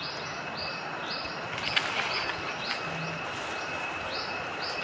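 A bird calls in runs of short high chirps, about two or three a second, over a steady thin high whine. A couple of brief knocks come about two seconds in.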